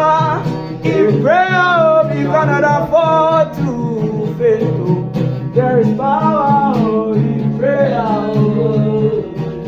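Gospel praise music: a singing voice drawing out wordless phrases over band accompaniment with sustained bass notes and a steady beat.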